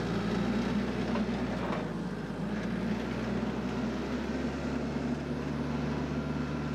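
Diesel engine of a TYM T474 compact tractor with loader and backhoe running steadily as the tractor drives across grass.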